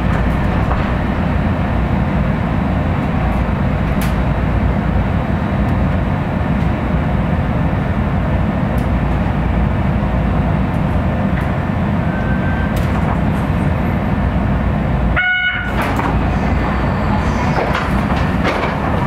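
Kitakyushu Monorail train, a steady, even rumble and hiss with no change in pace. About fifteen seconds in, a brief high tone with several pitches sounds once.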